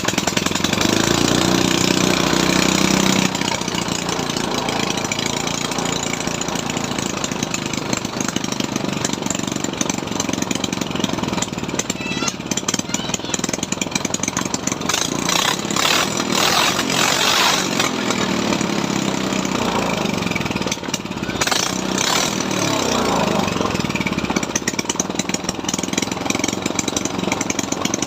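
A small engine running steadily with a fast, even firing rhythm, its pitch shifting briefly about twenty seconds in.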